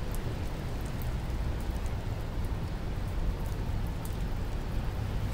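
Steady rain falling on wet pavement, with scattered drop ticks over a low steady rumble.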